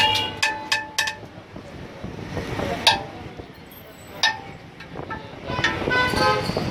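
Metal ladle striking the rim of a large metal cooking pot, each clink ringing briefly: a few quick taps at the start, a loud single clink about three seconds in, another just after four seconds, and a rapid run of taps near the end.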